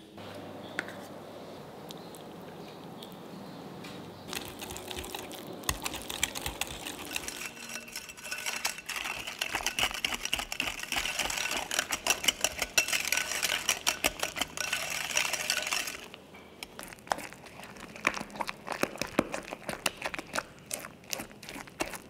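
Wire whisk beating a soft creamed butter mixture in a glass bowl: rapid clicking and scraping of the wires against the glass, densest from about four seconds in until about sixteen seconds, then sparser strokes.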